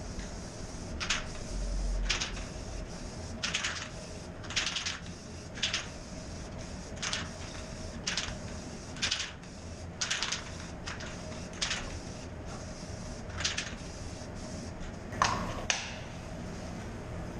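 Aerosol can of Rust-Oleum matte clear enamel spraying in short hissing bursts, about one a second, as a coat goes onto a motorcycle fuel tank. Two sharp knocks come near the end, over a faint steady hum.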